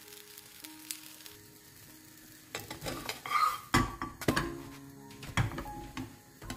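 An egg-and-gram-flour paratha sizzling in a non-stick frying pan. About two and a half seconds in, a slotted metal spatula knocks and scrapes against the pan as the paratha is lifted and flipped over, with the loudest knock a little before the paratha comes down. A couple of lighter taps follow as the spatula presses it flat. Background music with steady notes plays throughout.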